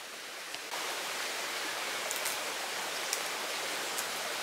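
Steady rushing outdoor background noise that steps up a little just under a second in, with a few faint ticks over it.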